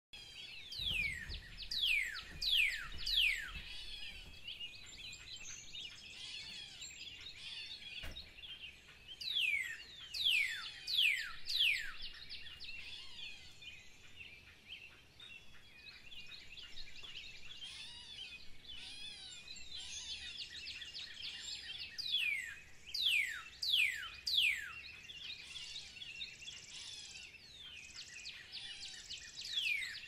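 Birds calling: clusters of sharp whistles that sweep steeply downward, coming in bursts about a second in, around ten seconds in, past twenty seconds and again near the end, over steady high twittering chatter.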